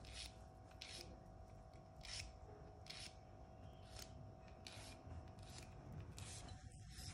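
A nail file rasping on a dog's claws in a series of short, faint strokes at an uneven pace.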